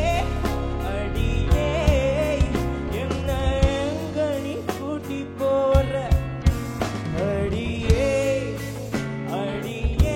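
A male singer performing a Tamil film song with band accompaniment, his voice wavering with vibrato over sustained instruments and a regular drum beat.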